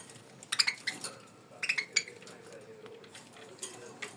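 Light clinking in three short clusters: about half a second in, near the middle, and near the end.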